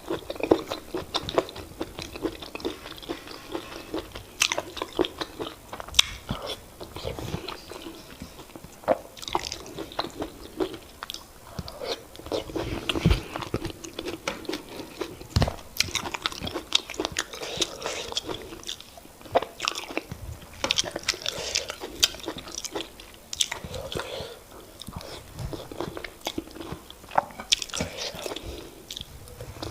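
Eating sounds of semolina fufu with oha soup, picked up close to the mouth: wet chewing and lip smacks with many sharp, irregular clicks.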